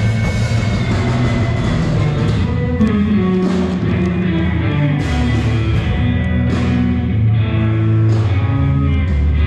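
Rock music with guitar.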